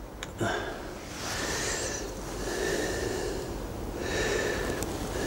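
A man breathing through his nose close to a clip-on microphone: slow, regular breaths of about a second each, roughly four in all, with a single sharp click about half a second in.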